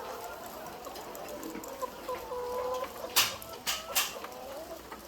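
A flock of egg-laying chickens clucking over one another, with three sharp knocks about three to four seconds in.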